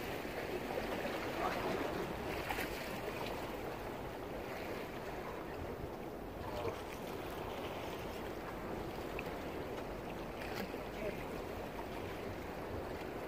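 Steady wash of calm sea water against jetty rocks, with wind on the microphone and a few light clicks.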